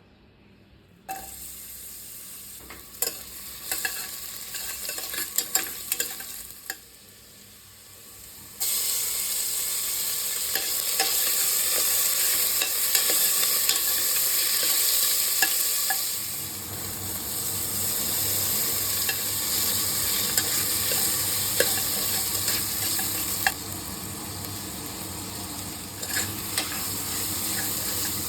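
Food frying in a pan while it is stirred. For the first third, a spoon clicks and scrapes with a low sizzle. Then a much louder sizzle starts suddenly and carries on steadily, with occasional spoon clicks against the pan.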